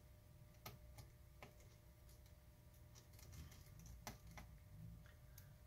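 Faint, scattered small clicks and ticks of tiny T4 screws and a precision screwdriver being handled over a laptop's logic board as the screws are taken out.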